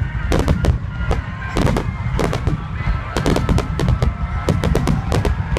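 Dense fireworks barrage: rapid, overlapping cracks and booms over a constant low rumble, with music beneath.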